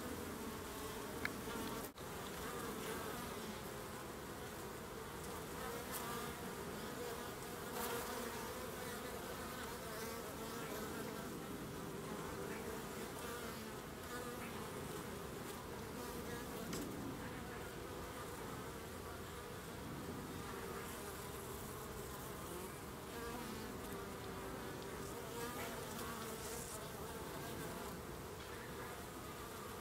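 Honeybees buzzing at a busy hive entrance: a steady, dense hum of many wings, with the pitch of single bees rising and falling as they fly close past.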